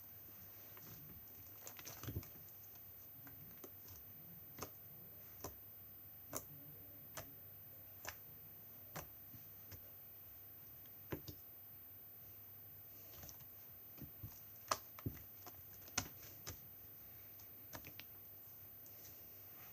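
Homemade glossy slime being pressed and played with by hand, making faint, sharp clicks and pops at irregular intervals, some in quick little clusters.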